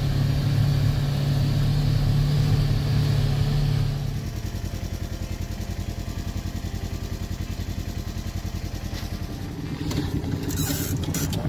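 A vehicle engine heard from inside the cab, a steady low hum while driving a snow-covered track. After about four seconds it switches abruptly to a quieter, fluttering engine, the sound of a tracked side-by-side, and a few sharp knocks and a brief rustle come near the end.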